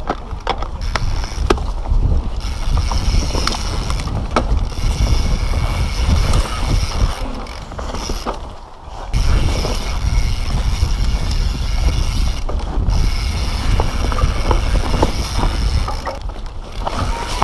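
Mountain bike ridden hard downhill over rock and dirt: tyres rumbling, chain and frame rattling with sharp knocks on the bumps, and the rear hub's freewheel ratchet buzzing in long stretches, broken by short gaps. The loudness dips briefly about eight and a half seconds in.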